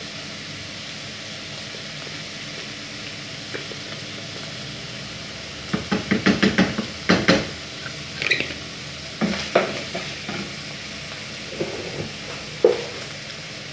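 Chicken pieces, mushrooms and onion sizzling steadily in oil in a frying pan, with a wooden spoon stirring and knocking against the pan in a quick run of knocks about six seconds in and a few single knocks later.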